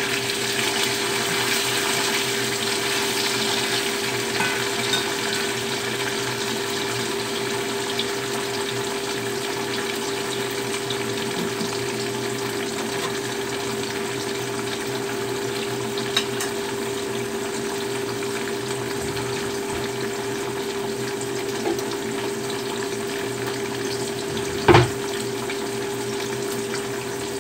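Tofu frying in hot oil in a small iron wok, a steady sizzle with a steady low hum underneath. Near the end a single sharp knock stands out above the sizzle.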